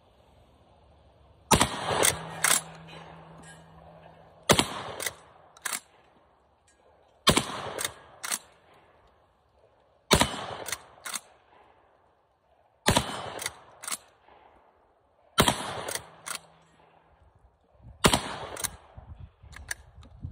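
Cimarron 1887 lever-action 12-gauge shotgun fired seven times, a shot about every two and a half seconds. Each shot is followed by two sharp clacks as the lever is thrown open and shut to eject the hull and chamber the next shell. All seven rounds of a full load feed and fire, working fine with the trimmed magazine spring.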